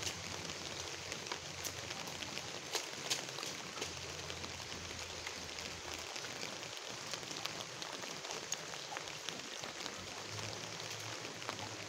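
Light rain falling steadily on a muddy puddle and wet ground, a constant patter with scattered louder single drops.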